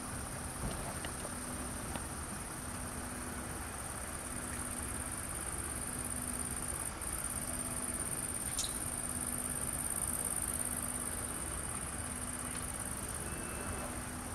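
Outdoor night ambience: a continuous high insect trill, typical of crickets on a summer night, over a faint low hum that breaks off every second or two. A single short falling chirp is heard about two-thirds of the way through.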